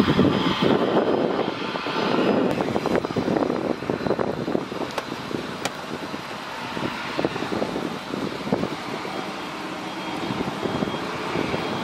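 Jet engines of a CRJ regional jet taxiing past, a steady rough rumble that slowly fades.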